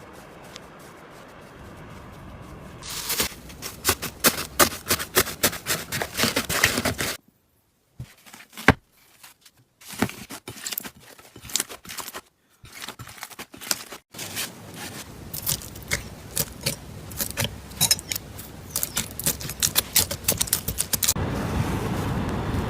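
Slime being squeezed and poked by hand, giving dense runs of small wet clicks and crackles, broken by a brief silent gap about a third of the way through.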